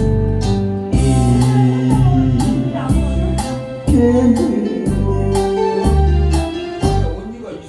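Instrumental interlude of a Korean trot backing track: a keyboard melody over bass and a steady beat.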